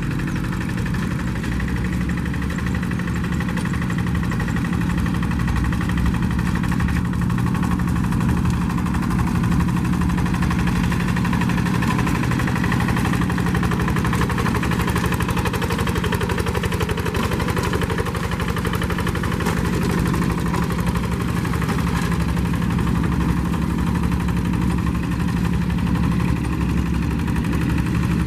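Rice-field hand tractor's engine running steadily at an even speed, without revving up or down.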